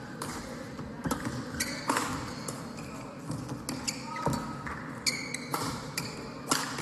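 Badminton rally: sharp racket strikes on the shuttlecock, mixed with shoe squeaks and footfalls on the court floor, at an irregular pace.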